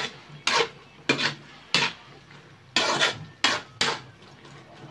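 Metal spatula scraping and knocking against a metal wok as a saucy pork and string-bean stew is stirred: six quick strokes, irregularly spaced.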